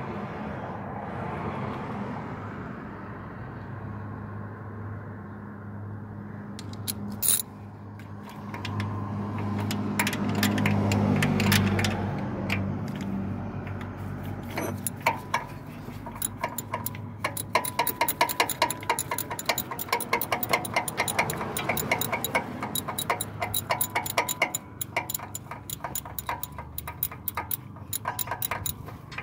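Hand ratchet with a socket clicking in fast, repeated runs from about halfway in as a bolt by the alternator is turned. Before that, a low steady rumble swells and fades.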